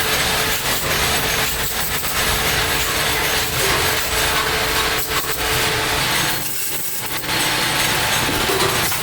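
A power tool running in a metalworking shop, a steady noise that eases briefly about six and a half seconds in.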